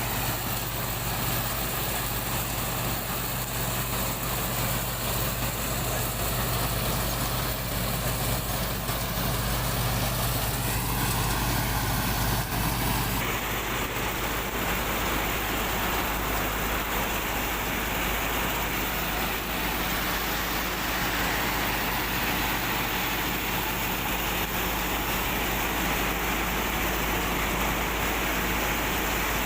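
Heavy farm-machinery engines running steadily during the tow of a bogged combine harvester, with an abrupt change in the engine sound about 13 seconds in.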